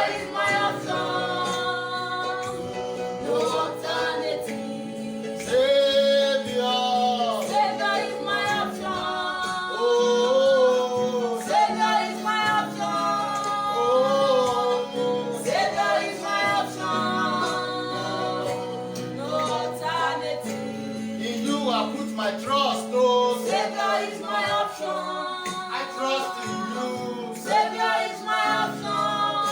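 Gospel music: a woman singing a slow worship melody with vibrato over sustained accompanying chords that change every few seconds.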